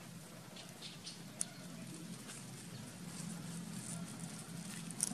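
Leaves and vine stems rustling, with scattered light clicks and ticks, as a baby macaque grabs and climbs among them. A sharp click comes about a second and a half in and a louder one near the end, over a faint steady low hum.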